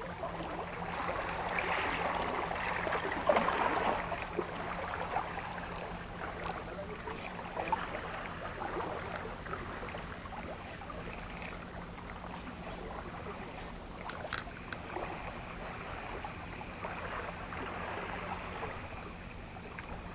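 Small waves lapping and sloshing against breakwater rocks, an irregular splashing that is strongest in the first few seconds and then settles to a softer wash.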